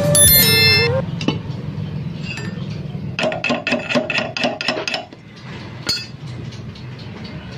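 A bright chiming sound effect with a wavering tone during the first second, then a quick run of sharp metallic clicks, about six a second, lasting under two seconds, over a low steady hum.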